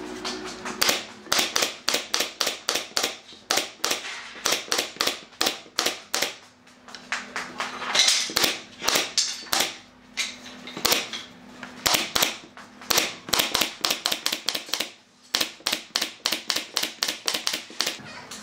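Pneumatic brad nailer firing in quick succession, a sharp crack with each nail it drives through the pine pallet slats into the plywood backing. Dozens of shots, two to four a second, with brief lulls about six and fifteen seconds in.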